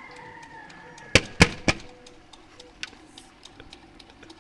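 Three sharp bangs in quick succession about a second in, over faint, scattered ticking.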